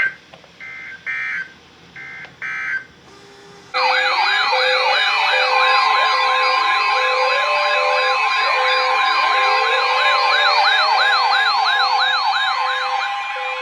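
Short digital EAS data bursts come in quick groups over the first few seconds. Then, about four seconds in, weather alert radios go off together: rising and falling siren wails, fast warbles and rapid beeps. A steady single-pitch alert tone joins them about a second later.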